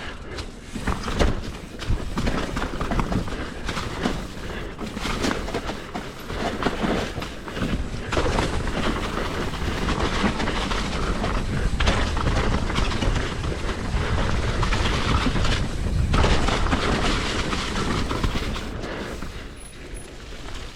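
Hardtail mountain bike clattering down a rough, rocky trail: tyres rolling over rock and roots, with constant rattling and frequent knocks from the frame and drivetrain, and a low rumble of wind across the microphone.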